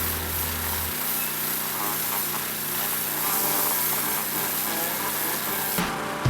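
Pressure washer spraying with a steady, even hiss that cuts off abruptly near the end.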